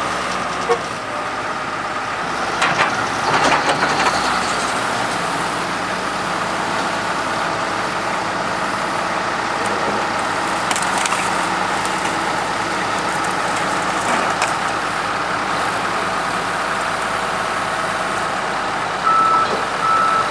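A forklift lifts a scrap motor home off a trailer, its engine running steadily. The body creaks and cracks under the load about three seconds in and again around eleven seconds. Reversing beeps start near the end.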